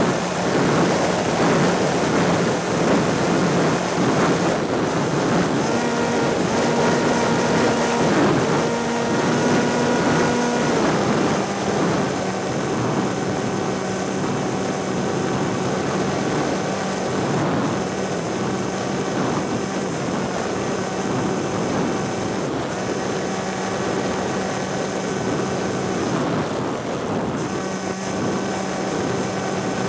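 A small aircraft's propeller motor runs with a steady hum over wind rushing across the onboard microphone. About six seconds in the pitch steps up for several seconds, then drops back to a steady cruise note.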